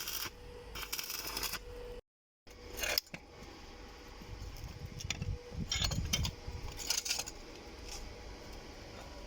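Metal tiller parts and tools being handled, with scraping near the start and clinks and knocks of metal on metal, bunched about five to seven seconds in.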